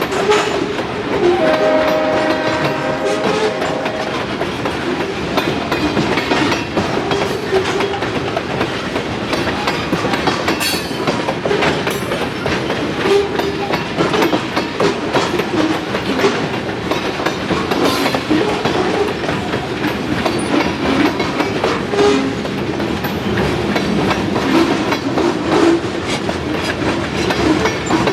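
Freight train passing behind an ex-Southern Pacific EMD SD40 locomotive. About a second in, its air horn sounds one steady chord for roughly two and a half seconds. Then the steel wheels of the passing cars rumble on the rail and click repeatedly over the joints.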